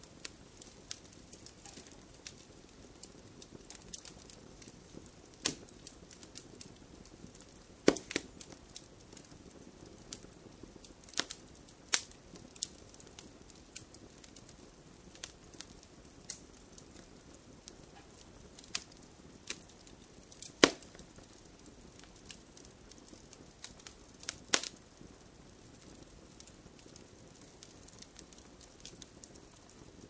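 Wood fire crackling in a fireplace: irregular sharp snaps and pops over a soft steady hiss, with a handful of much louder pops spread through.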